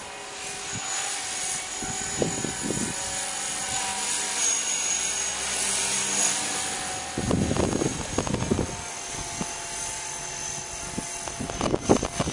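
Blade 300X electric RC helicopter in flight: a steady motor and rotor whine that grows louder toward the middle and then eases off. Gusts of wind buffet the microphone about seven seconds in and again near the end.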